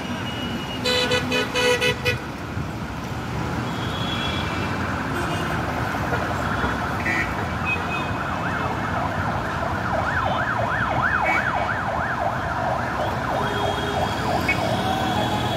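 City road traffic with an emergency-vehicle siren yelping in quick rising-and-falling sweeps, about four a second, through the middle and later part. A car horn gives a few short toots about a second in.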